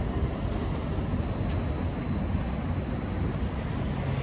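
Steady low rumble of a bus engine running amid street traffic, with a faint steady high whine and a single brief tick about one and a half seconds in.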